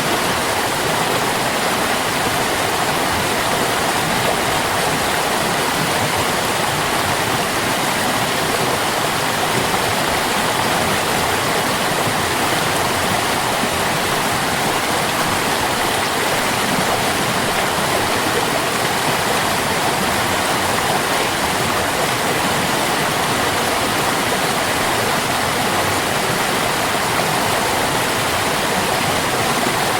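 Running water of a stream, a steady, unbroken rush.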